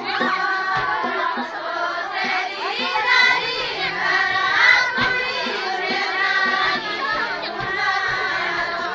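A group of voices singing a Kumaoni jhoda-chanchari folk song together in chorus, with short low drum beats keeping time underneath.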